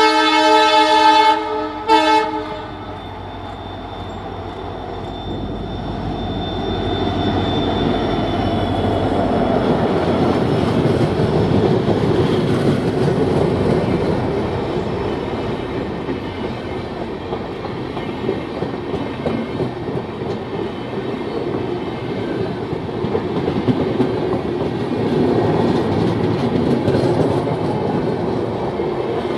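Multi-tone horn of a WDP4D diesel locomotive (EMD 16-cylinder two-stroke) sounding, ending with a short second toot about two seconds in. The locomotive's engine rumble then passes and its passenger coaches roll by at a crawl under a 30 km/h speed restriction, wheels clattering steadily over the rails.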